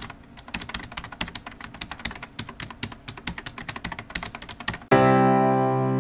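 Rapid, uneven clicking like typing on a computer keyboard, used as an intro sound effect. It stops about five seconds in, when piano music with held notes begins.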